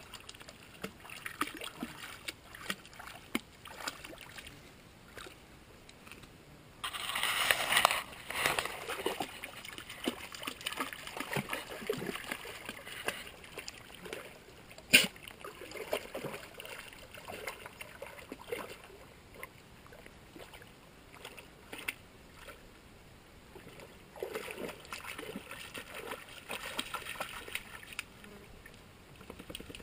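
Creek water splashing and sloshing in irregular bursts. The loudest stretch lasts about two seconds, roughly a quarter of the way in, and a single sharp knock comes near the middle.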